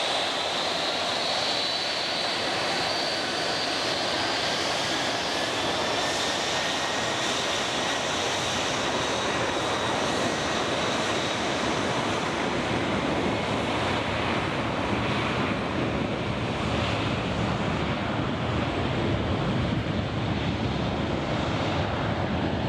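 Tupolev Tu-204 twin-engine jet at takeoff power on its takeoff run: a steady jet roar with a high fan whine that climbs in pitch over the first few seconds, and a low rumble that grows in the second half.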